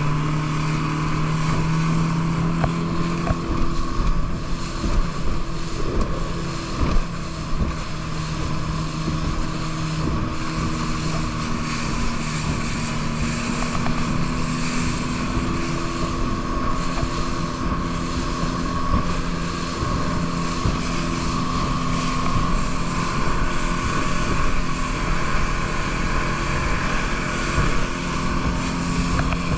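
Motor of a small rigid inflatable boat running steadily at speed, with water spray hissing along the hull and wind buffeting the microphone.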